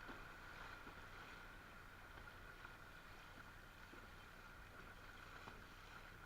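Near silence: faint steady background hiss with a faint thin steady tone and a few tiny ticks.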